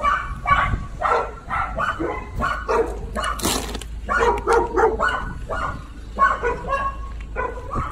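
Dogs barking over and over in quick, short barks.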